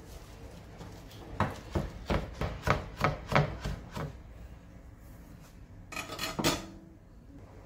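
Kitchen knife chopping fresh cilantro on a wooden cutting board: a run of quick knocks, about four a second, for two or three seconds. Near the end comes a short scrape as the chopped greens are gathered up on the board.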